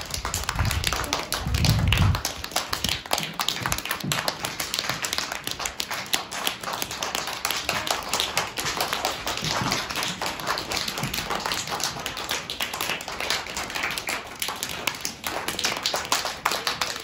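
A group of young children clapping their hands together, a dense, continuous stream of many overlapping claps. A few low thumps come about one to two seconds in.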